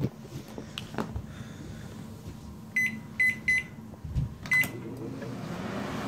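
Panasonic inverter microwave oven's keypad beeping four times, three in quick succession and one about a second later, then the oven starting up with a steady hum and fan noise that builds near the end. It is the test start after a melted wire connector inside was rejoined.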